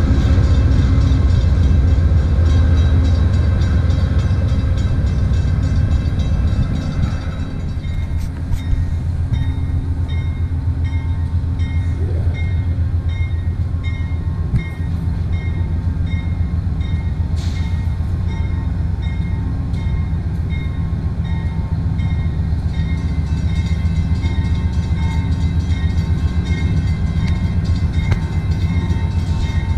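Amtrak GE P40DC diesel locomotive running as the train pulls away. Its deep engine rumble is loud at first and drops off about seven seconds in. After that a quieter, steady train sound remains, with a faint, evenly repeating ping.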